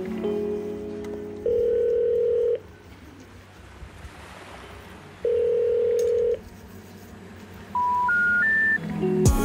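Telephone call tones as the music drops out: two ringback rings, each about a second long and about four seconds apart. Then come three short rising notes of the special information tone, the signal that comes before a 'number not in service' recording. Music comes back near the end.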